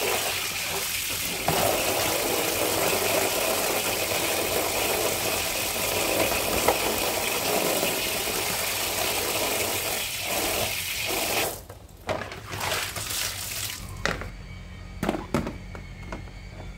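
Water from a hose running and splashing into a plastic cat litter tray as it is rinsed and scrubbed with a brush. The water stops about eleven seconds in, and a few scattered knocks and clicks follow.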